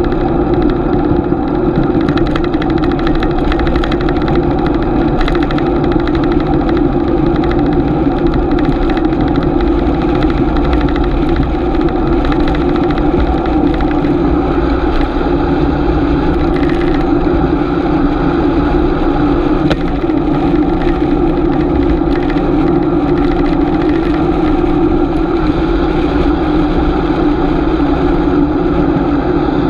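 Steady riding noise on a GoPro carried on a moving bicycle: a continuous rushing hum that keeps on without a break.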